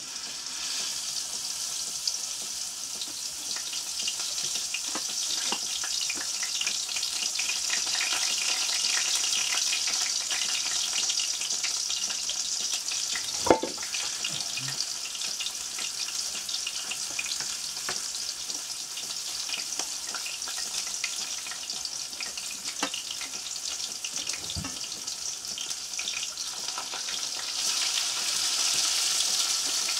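Crucian carp frying in hot oil in a frying pan: a steady sizzle with fine crackling, swelling near the end. A single sharp click about halfway through is the loudest moment.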